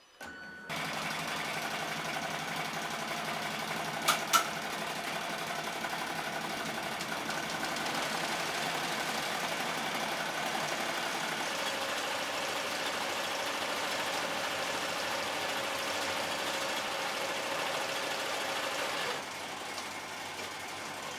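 Melco EMT16X multi-needle embroidery machine starting up and stitching steadily through a hooped beanie cuff. There are two sharp clicks about four seconds in, and the running gets somewhat quieter near the end.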